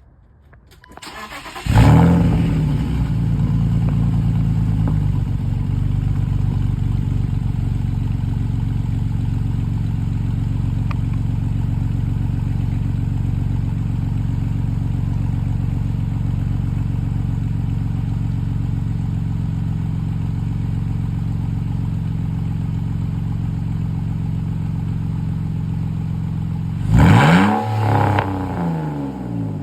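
2000 BMW Z3 engine with its muffler cut off and a welded-on tailpipe, starting about two seconds in and idling steadily through the open exhaust, then revved once near the end.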